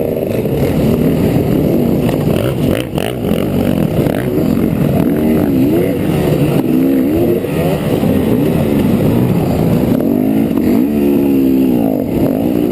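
Trail bike engine under way, revving up and down over and over as the throttle is worked and released, with a brief drop in level about three seconds in.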